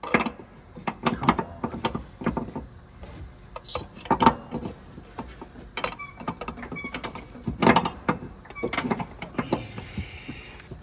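Irregular metal knocks and clinks of hand tools and engine parts being worked by hand in a car's engine bay.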